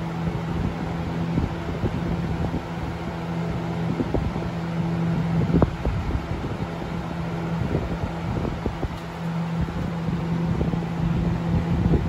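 Lasko Ultra Force Model 3700 box fan running, its motor humming steadily under the rush of air. The airflow buffets the microphone unevenly, hardest a little past halfway.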